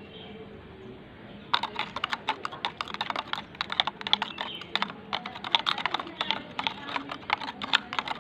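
Steel spoon stirring glucose powder into kerosene in a small plastic jar, a fast run of clicks and scrapes against the jar's sides starting about a second and a half in.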